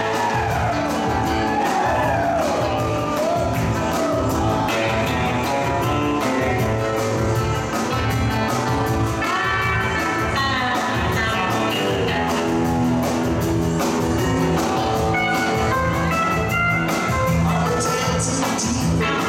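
Live rock band playing an instrumental passage: electric guitars, keyboards, bass and drums with a steady beat. An electric guitar lead bends its notes up and down in the first few seconds.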